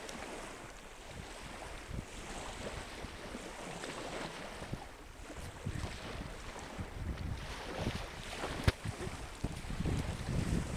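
Wind buffeting the microphone over the wash of sea water, with one sharp knock about three-quarters of the way through.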